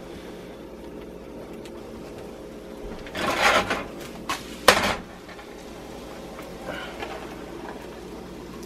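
Small nonstick frying pan tossed to flip an omelet: a short rustling rush about three seconds in, then a sharp knock as the pan comes back down on the electric coil burner just before five seconds. A faint steady hum runs underneath.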